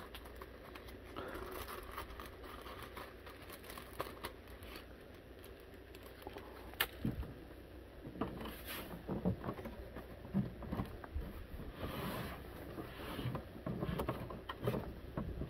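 Hands handling the plastic case of a Radio Shack TRS-80 Model 4P, trying to work it open: scattered light clicks, taps and soft scrapes, more frequent in the second half.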